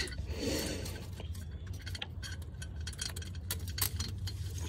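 Irregular light metallic clicks and ticks from an exhaust pre-cat delete pipe and its fasteners being handled and lined up by hand, over a steady low hum.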